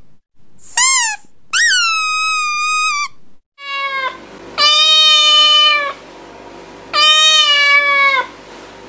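Cat meowing: five drawn-out meows, the first two higher-pitched and the last three lower with a faint steady hiss behind them.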